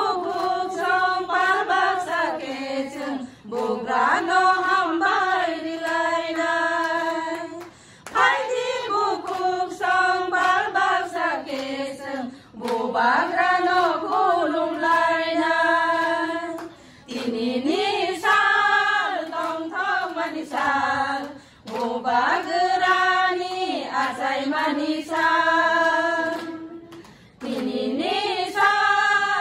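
A group of women singing together in unison, in held phrases a few seconds long with a short breath between each.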